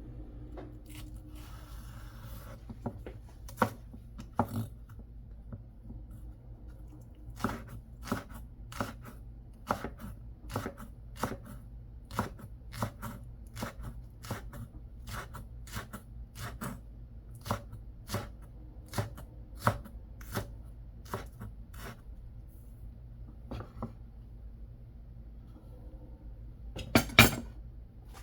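Series of sharp kitchen knocks, a utensil striking a hard surface about one and a half times a second for much of the stretch, with scattered knocks before that. Near the end comes one louder clatter.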